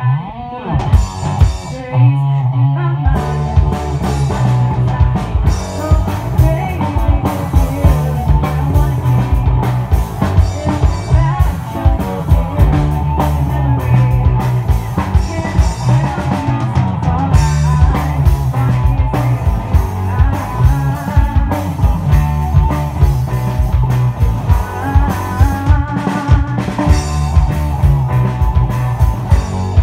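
Live rock band playing an electric guitar riff, with bass and drum kit coming in about three seconds in and carrying a steady beat.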